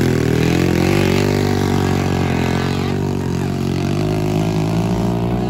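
Small motocross bike engine running steadily, its pitch shifting a little as the revs rise and fall.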